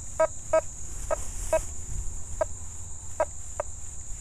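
Nokta Fors Core metal detector giving a series of short, same-pitched target beeps as the coil sweeps over a dime lying under a rusty nail. The repeated high-conductor tone is coming through with the iron discriminated out.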